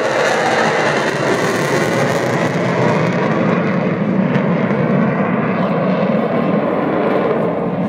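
F-16 fighter jet's engine noise overhead: a loud, steady rushing roar. Its high hiss thins from about halfway through, leaving a low rumble.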